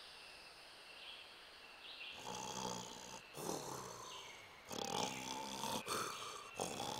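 Cartoon rooster snoring in his sleep: after a quiet start, a series of rasping snores begins about two seconds in, one roughly every second.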